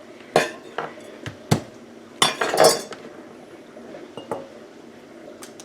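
A few sharp clinks and knocks of a knife and glass jars against the kitchen counter while garlic is prepared and dropped into the jars, with a short cluster of clatter about two seconds in.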